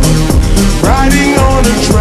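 A slowed-down pop song playing, with a steady beat and bass and a melody line that slides up in pitch about a second in.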